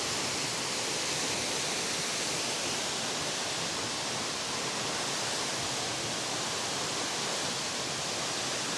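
Plunge waterfall pouring into its pool: a steady, unbroken rush of falling water.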